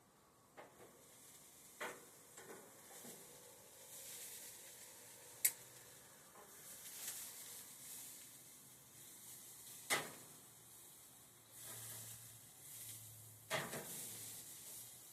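Marinated chicken sizzling on a propane grill, a soft hiss that swells and fades. A few sharp clicks or knocks come through it; the loudest is about five seconds in.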